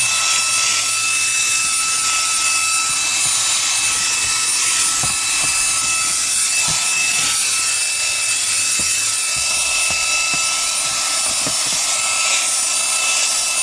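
Reikiya HV-C11 cordless handheld vacuum running steadily with a high motor whine, with scattered small ticks.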